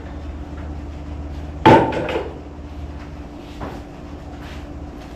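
A loud metallic clank with a brief ring about a third of the way in, followed by a little clatter and a couple of fainter knocks, over a steady low hum: metal parts or tools being handled on a garage workbench.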